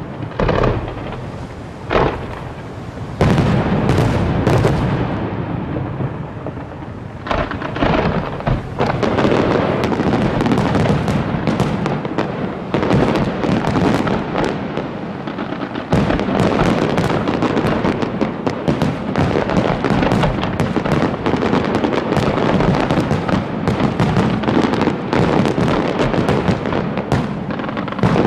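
Aerial fireworks shells bursting: a few separate heavy booms at first, then, from about a third of the way in, a dense run of rapid bangs and crackling stars.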